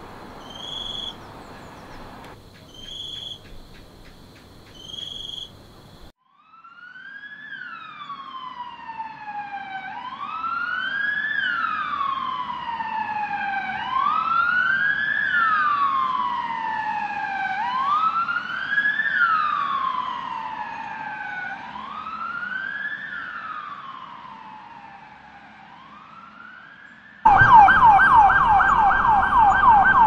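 Ambulance sirens in city traffic. For the first six seconds a short tone repeats about once every second and a half over traffic noise. Then a wail siren rises and falls slowly, about once every four seconds, growing louder and then fading. Near the end it cuts abruptly to a loud, fast yelp of about four warbles a second.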